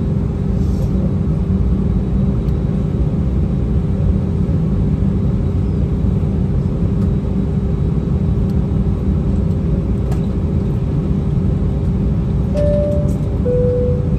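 Airbus A319 cabin before takeoff: a steady low rumble of the jet engines at low power, with a constant hum. Near the end come two short tones, the second lower than the first.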